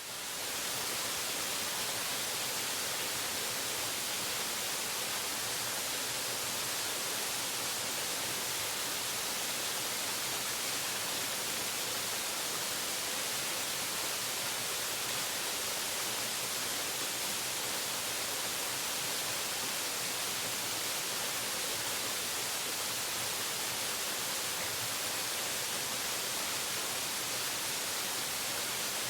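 Waterfall: falling water making a steady, even hiss, strongest in the upper range, without a break.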